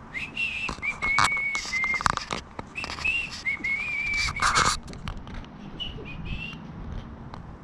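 A person whistling two short wavering phrases of a tune, with a fainter snatch near the end, over clicks and knocks of parts being handled; the loudest knock comes about four and a half seconds in.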